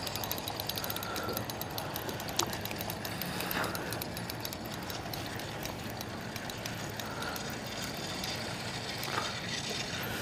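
Spinning reel being cranked steadily, its gears ticking rapidly and evenly, while reeling in a hooked fish.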